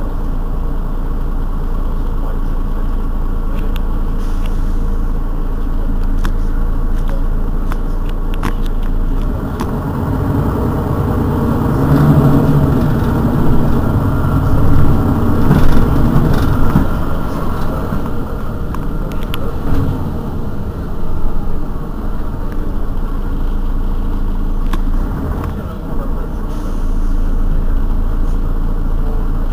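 Mercedes-Benz Citaro city bus running, its engine humming steadily, then growing louder and rising in pitch from about eleven to seventeen seconds in, as under acceleration, before easing back to a steady run.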